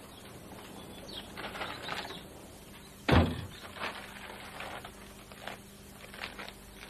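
A wooden front door banging shut with a single sharp thud about three seconds in, among faint footsteps and the rustle of a coat being taken off.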